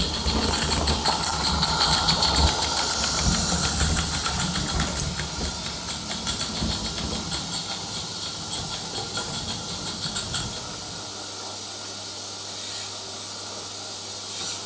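Live steam model locomotive running on tinplate O gauge track, its wheels rumbling on the rails under a steady hiss of steam. About ten seconds in the running noise drops away, leaving a quieter steady hiss.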